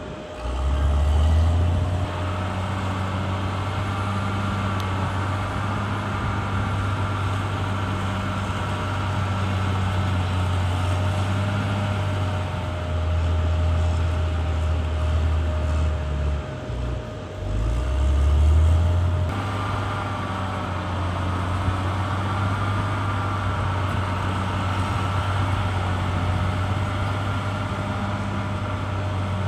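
Caterpillar D6R XL bulldozer's diesel engine running under load with a steady high whine over its low drone. The engine swells near the start and surges and dips around the middle, and the sound changes abruptly about two-thirds through.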